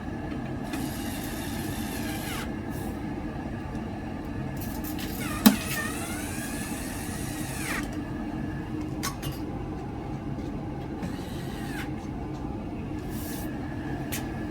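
Carlin oil burner on a Buderus boiler running steadily. There is a sharp metallic click about five and a half seconds in, and a few short squeaks that glide in pitch.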